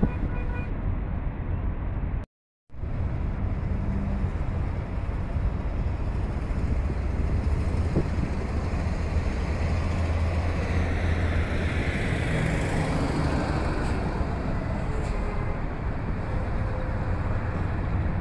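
Steady road and engine rumble of a car heard from inside the cabin while driving, with tyre hiss above it. The sound cuts out briefly a little over two seconds in.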